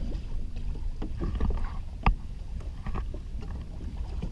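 Kayak on the water: a low rumble of wind and water against the hull, with scattered knocks and one sharp knock about two seconds in.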